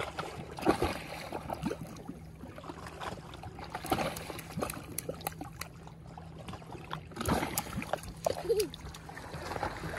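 Lake water lapping and trickling at a rocky shoreline, with scattered small clicks and knocks over a faint steady low hum.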